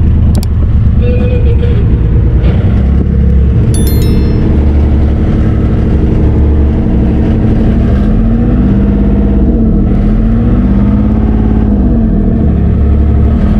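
Enclosed lifeboat's inboard diesel engine running under way, heard from inside the cabin as a loud, steady drone. Its pitch rises and falls in the second half as the boat is maneuvered.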